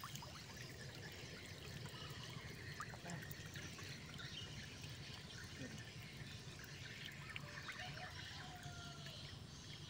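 Water trickling and dripping from a raised square lift net back into the river surface, faint and steady with many small patters.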